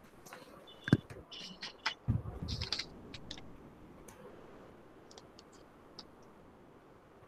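Computer keyboard and mouse clicking in irregular bursts, with one louder knock about a second in and a low bump and rustle around two to three seconds, then a few faint clicks later. A couple of brief high tones sound among the early clicks.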